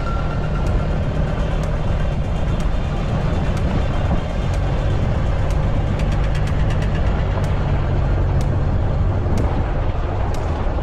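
Campfire burning: scattered sharp crackles over a steady low rumble.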